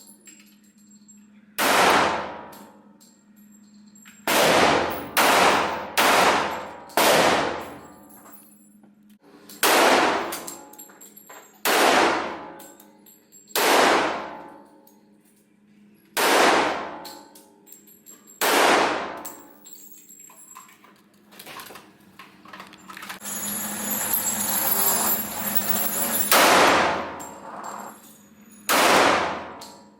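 Single gunshots fired at a range, about a dozen sharp reports at irregular intervals of one to three seconds, each followed by a ringing tail. A rushing noise swells and fades about two-thirds of the way through.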